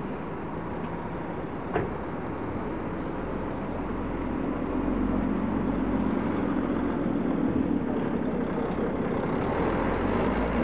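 Jet aircraft taxiing in the distance: a steady engine rumble that grows louder about four seconds in, with one short knock about two seconds in.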